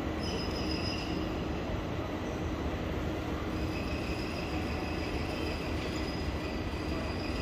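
Ambience of a large train station hall with trains at the platforms: a steady low rumble. A thin high-pitched squeal comes in briefly near the start and returns about halfway through.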